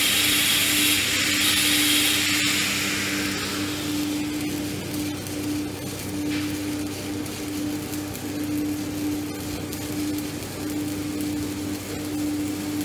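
Stick-welding (SMAW) arc from a 7018 electrode running a pass on steel pipe, a steady hissing crackle that is strongest in the first few seconds. A low hum that cuts in and out runs underneath.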